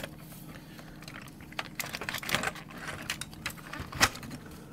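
Scattered light clicks and taps of a sheet-metal plate being handled and fitted onto a computer's keyboard assembly, with a cluster about two seconds in and the sharpest single click about four seconds in. A faint steady hum runs underneath.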